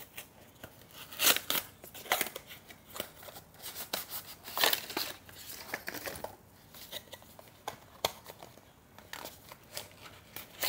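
A cardboard product box and its paper packaging being opened and handled: irregular scraping, rustling and sliding of cardboard, louder about a second in and again near the middle.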